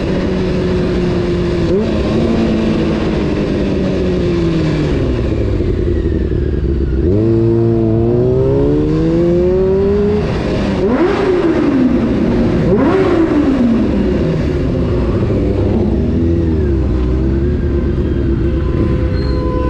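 Honda CBR600 F4 inline-four motorcycle engine heard while riding. The revs sink for a couple of seconds, then climb hard about seven seconds in. After that they rise and fall quickly twice, then settle into steadier running with small throttle changes.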